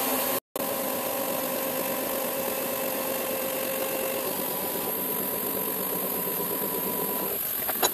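Modified Axminster milling machine's CNC table drive moving the table, a steady mechanical whine with a couple of steady tones in it. It stops about seven seconds in, and a few light clicks follow.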